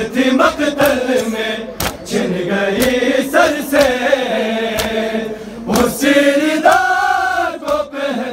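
A group of men chanting a noha, an Urdu mourning lament, in chorus, with sharp strikes at a roughly even beat, about once a second, typical of matam chest-beating keeping time with the lament.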